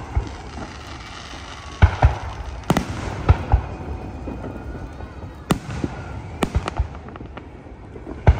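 Aerial firework shells bursting in an irregular series of sharp bangs, about ten in all, each trailing off in an echo.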